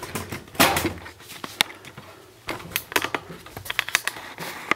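Irregular light clicks and knocks of uneven loudness: handling noise as the camera is set down and moved. The loudest taps come just after the start and around three seconds in.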